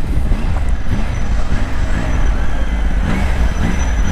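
Triumph Tiger 900's three-cylinder engine running as the motorcycle slows and is shifted down from sixth to first gear, with wind rushing over the microphone.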